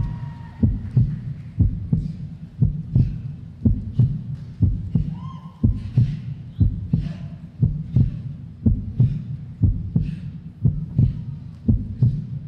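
Recorded soundtrack of a winter guard show played over the arena sound system: a deep, steady pounding beat of about two thumps a second, with little else over it.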